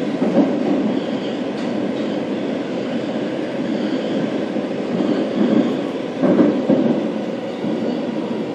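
Interior running sound of a Tokyo Metro Marunouchi Line 02 series car with PMSM traction motors, under way between stations: a steady rumble of wheels on rail, with louder knocks just under half a second in and about six seconds in.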